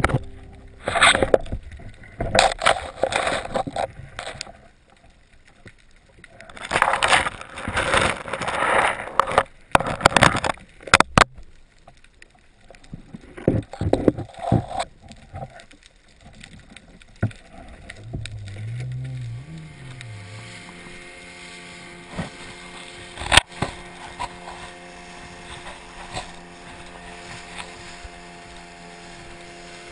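Underwater rushing noise in irregular bursts with sharp knocks. Past the middle a motorboat engine takes over, its pitch rising and falling once before it runs steadily.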